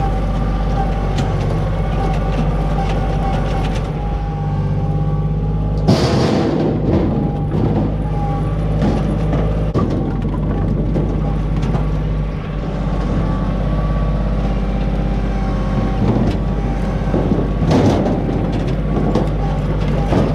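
Loader engine running steadily while firewood is scooped up in the bucket. A loud clatter of wood comes about six seconds in and again near the end.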